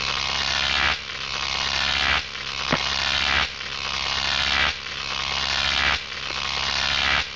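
Logo intro sound effect: a steady electric hum with a hissy mechanical whir on top that swells and drops back about every 1.2 seconds in a repeating loop, with a single click about a third of the way through.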